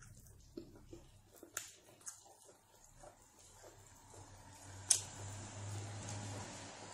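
Close-up eating sounds: soft wet lip smacks and chewing clicks as a person eats with her fingers, picking at meat on the plate. A sharper click about five seconds in, followed by a soft steady hiss.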